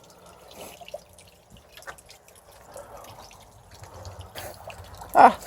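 Water dripping and trickling in small irregular drops from a homemade bamboo fountain into a bucket. A short voice sound cuts in near the end.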